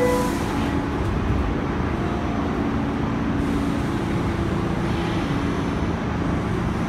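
Steady rumble of an R46 subway car running, heard from inside the passenger cabin.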